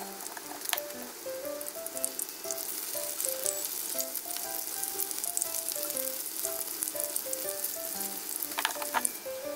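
Batter-coated broccoli florets shallow-frying in oil in a frying pan: a steady crackling sizzle dotted with sharp pops.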